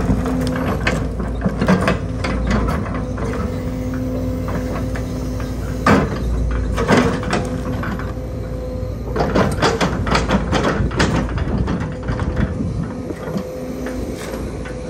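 A hydraulic excavator's diesel engine running steadily while its heavy steel demolition grab works, with repeated knocks and clatters of the grab and debris. The knocks come in a cluster near the start, singly around the middle and in a quick run in the second half.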